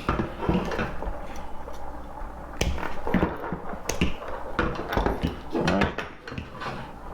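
Handling noise: scattered clicks and light knocks of hard parts being picked up and set down, as a metal detector and its headphone cable are handled for repair, over a low steady hum.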